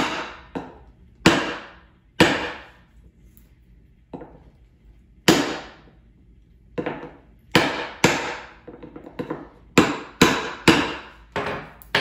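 Hammer blows on a tool held against the rim of an ATV tire and wheel: about a dozen sharp strikes at irregular spacing, coming faster in the second half, each ringing briefly and fading.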